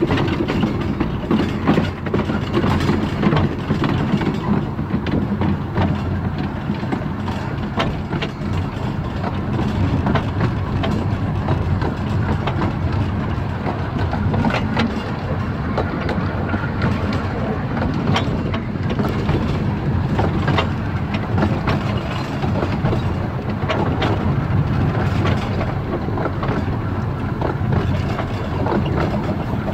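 Kerr Stuart Wren class narrow-gauge steam locomotive heard from its footplate while under way: a steady running rumble and rattle, with scattered short clicks from the wheels and track.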